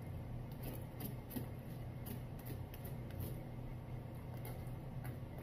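Faint eating noises, soft chewing with a few light clicks, over a steady low hum.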